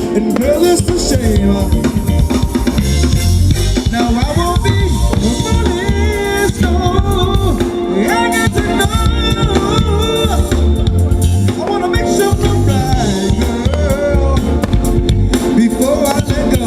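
Live band playing an upbeat dance song: a drum kit keeps a steady beat of kick and snare under a melody line.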